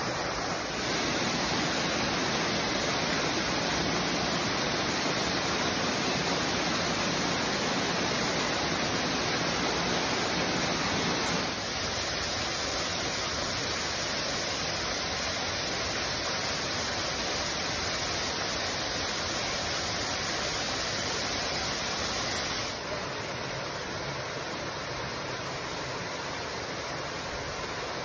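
Waterfall: a steady rush of falling water. The level jumps up about a second in and drops abruptly about 11 and 23 seconds in.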